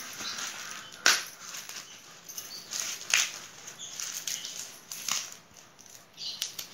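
Sweet corn husk leaves being torn off the ear by hand: papery rustling with several sharp rips, about one every two seconds.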